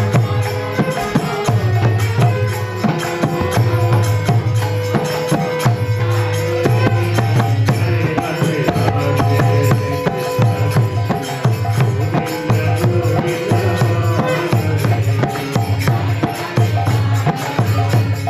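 Kirtan music: a harmonium holds steady chords over a rhythmic hand-drum beat and constant jingling percussion.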